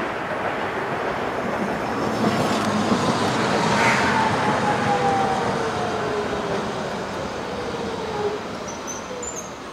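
Hiroshima Electric Railway 3800-series articulated tram passing and slowing for a stop, its motor whine falling steadily in pitch over about five seconds as it brakes, over continuous road traffic noise.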